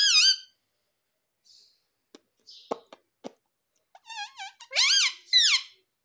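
Indian ringneck parakeet calling: a short high call at the start, a few faint clicks in the middle, then a run of loud high calls that rise and fall quickly in pitch near the end.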